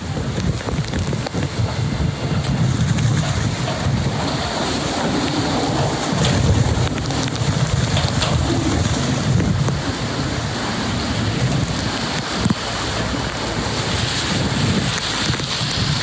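Typhoon wind gusting and buffeting the microphone: a continuous rush of noise with an uneven low rumble.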